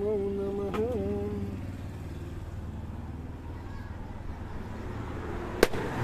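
A coconut smashed once on the pavement: a single sharp crack shortly before the end, as its water starts to splash out. Under it runs a low steady rumble, and a drawn-out voice fades out in the first second and a half.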